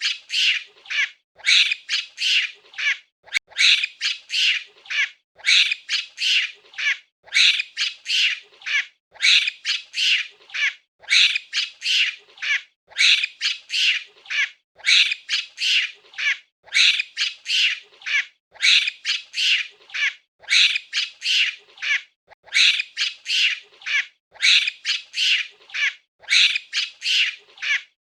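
A monkey's shrill, high calls, repeated in quick runs of three or four, over and over.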